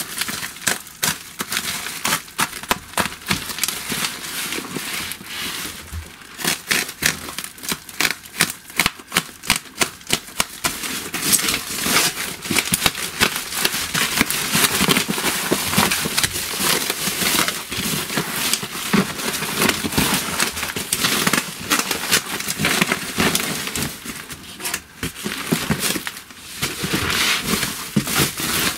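Plastic parcel wrapping being torn open and crumpled by hand: a dense, irregular run of crinkling and sharp crackles.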